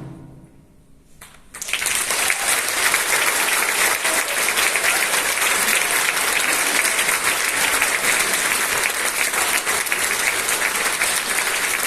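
The last drum stroke of the percussion piece rings away, then after a brief hush an audience breaks into applause about a second and a half in, clapping steadily and loudly.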